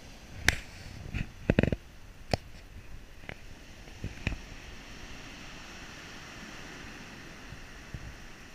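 Surf washing steadily on a pebble beach. During the first four seconds a run of sharp knocks and clicks, several close together, comes from the camera being handled and set down on the stones.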